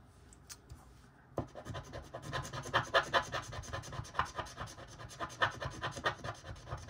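Scratch-off circle on a paper savings-challenge sheet being scratched off, starting about a second and a half in as a fast run of short scraping strokes.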